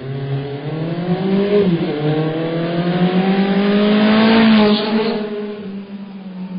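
Racing car engine accelerating hard. It climbs in pitch, changes up a gear about two seconds in and climbs again to its loudest about four and a half seconds in, then drops back and fades.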